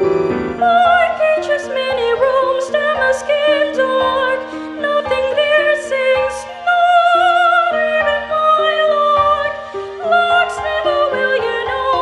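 A female soprano singing a slow musical-theatre ballad in a classical style with wide vibrato on long held notes, over a programmed instrumental backing of sustained chords.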